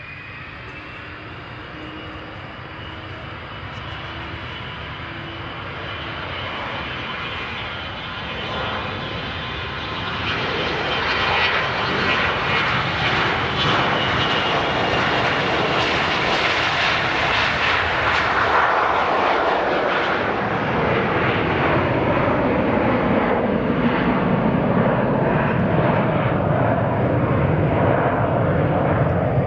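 Gulfstream G550 business jet's twin Rolls-Royce BR710 turbofans on takeoff. A faint whine builds into a loud jet roar as the engines come up to takeoff power, and the roar then drops steadily in pitch as the jet passes and climbs away.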